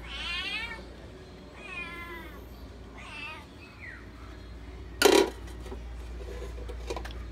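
Domestic cat meowing three times in wavering calls, then a short, loud sharp sound about five seconds in.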